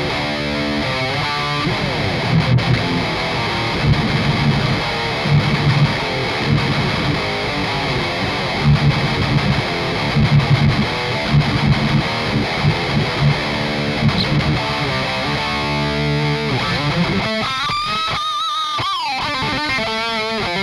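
Heavily distorted electric guitar played through a metal amp-sim plugin: choppy low riffing, then a high lead note near the end that is bent upward and held with vibrato.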